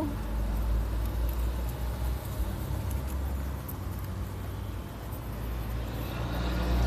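Steady low outdoor rumble with a few faint clicks, growing louder near the end.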